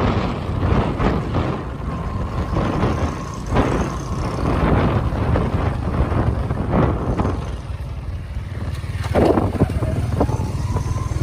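Small motorcycle engine running steadily with a low drone and some rattling, getting louder for a moment about nine seconds in.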